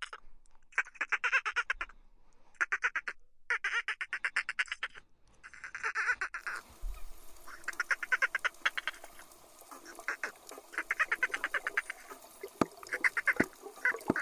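Dolphin burst-pulse calls: many short bursts of very rapid pulses, each about half a second to a second long, with brief gaps between. Partway through, a steady hiss comes in underneath, and two sharp clicks sound near the end.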